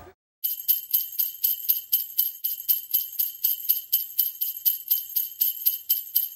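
Jingle bells shaken in a steady, even rhythm, about four shakes a second, with a bright high ringing. They start about half a second in and stop just before the end.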